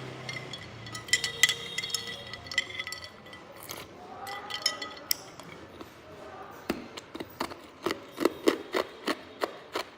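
Hard ice cubes clinking against a glass container with a ringing chink, then close-up chewing of hard ice: a quick run of sharp crunching cracks, about three a second, in the last few seconds.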